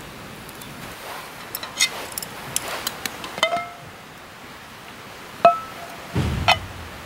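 Metal camp cookware clinking as pots are handled: a run of small clicks, then two short ringing clinks about three and a half and five and a half seconds in. A dull knock with another clink comes near the end.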